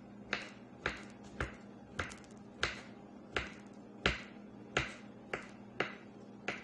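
Kitchen knife chopping on a wooden cutting board: about eleven sharp knocks, roughly one every half second to two-thirds of a second, as the produce is cut into small pieces.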